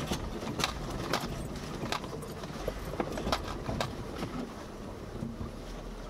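Jeep Wrangler Unlimited Rubicon crawling over a rough, rocky trail section: irregular clunks and knocks from the suspension and body jolting over the rocks, about seven sharp ones, over a low engine rumble.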